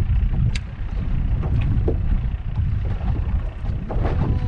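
Wind buffeting the microphone out on open water: a steady, uneven low rumble, with a few faint clicks scattered through it.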